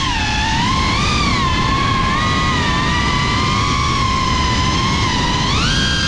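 Brushless motors and propellers of a GEPRC Cinelog35 cinewhoop FPV drone whining in flight, the pitch rising and falling with throttle over a rushing noise of air. The pitch climbs sharply near the end as the throttle is pushed.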